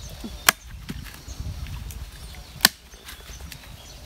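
A blade chopping into a coconut: two sharp strikes about two seconds apart.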